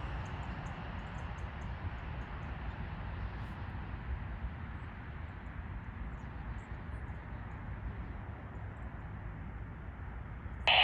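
Steady outdoor background noise, a low rumble with a soft hiss and a few faint high chirps; no siren is sounding yet. A scanner radio cuts in loudly right at the very end.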